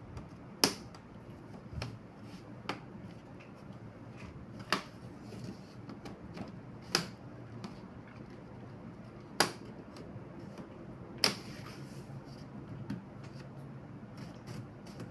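Sharp plastic clicks and snaps of a laptop's bottom case being worked at and pried, with about five loud clicks spread out and softer taps and handling noises between.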